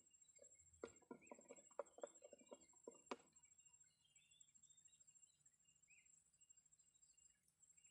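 Near silence outdoors: a steady high insect drone, a few faint bird chirps, and a brief run of soft clicks and taps about a second in, as of fishing tackle being handled.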